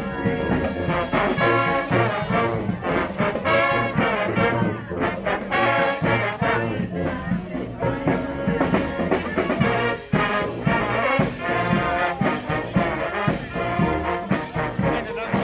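Street brass band playing: a tune on brass horns over a steady beat.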